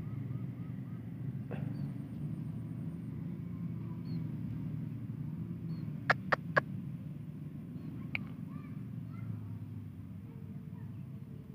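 Steady low rumble with three sharp clicks in quick succession about six seconds in, a single fainter click about two seconds later, and faint high chirps.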